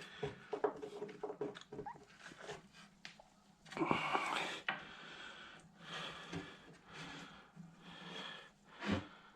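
A man's audible breathing and soft effort noises, with a swell of breath about four seconds in, and small clicks and taps of handling wood and metal dowel-centre pins.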